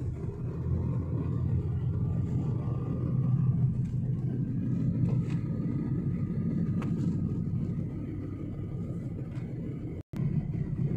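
Steady low rumble of a car driving, heard from inside the cabin: road and engine noise. It drops out for an instant near the end.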